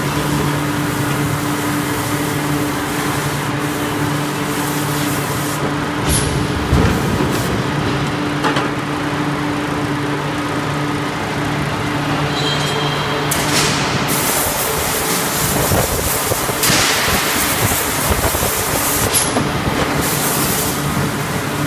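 7000-ton mechanical hot forging press and its machinery running: a steady low hum, broken by loud hisses of air every few seconds and a few short, sharp knocks.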